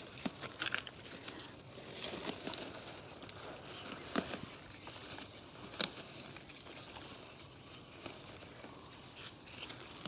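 Faint rustling and crinkling of green onion plants being pulled and cleared by hand, with scattered small snaps and clicks, the sharpest about four and six seconds in.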